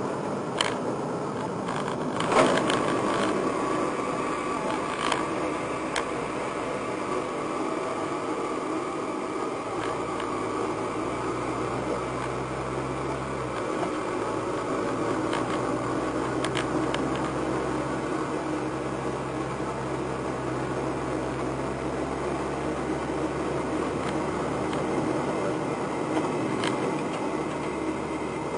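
Running noise of a Nissan R35 GT-R at speed as a sudden abnormal noise starts at the rear of the car. There are a few sharp clicks, the loudest about two seconds in, then a low steady drone from about ten seconds in. The cause of the noise is unknown.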